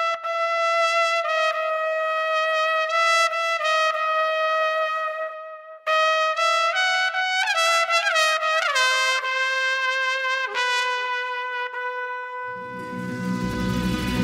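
Music: a solo brass-like melody of held notes, breaking off briefly about five seconds in, then a quick falling run into a long held low note. Electronic music with heavy bass comes in near the end.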